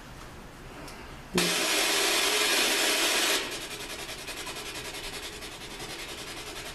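Spirit box radio static switching on suddenly about a second and a half in. It is a loud hiss for about two seconds, then drops to a quieter static with a fast, even pulsing as the box sweeps the radio band.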